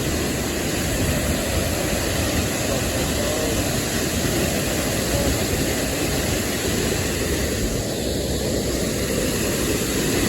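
Steady roar of a large waterfall: rushing water making an even, unbroken noise.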